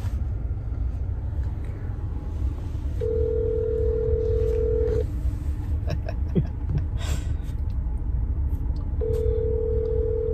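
Telephone ringback tone sounding twice, each ring about two seconds long and starting about six seconds apart, over the steady low rumble of a car on the road.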